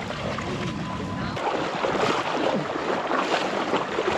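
Shallow seawater splashing and sloshing around the legs of someone wading through it, the splashing growing denser about a second in.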